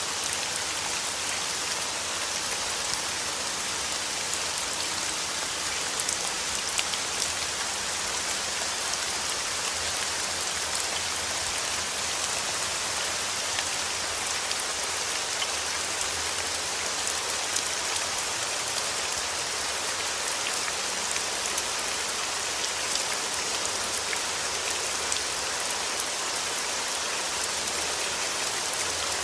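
Steady rain, an even hiss with scattered individual drops pattering on a surface.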